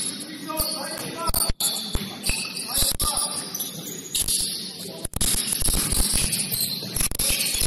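Sounds of an indoor basketball game: the ball bouncing repeatedly on the court, short high-pitched sneaker squeaks, and players' voices calling out.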